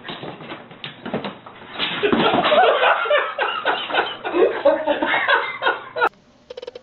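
A man laughing loudly and helplessly, growing into full laughter about two seconds in and cutting off suddenly near the end.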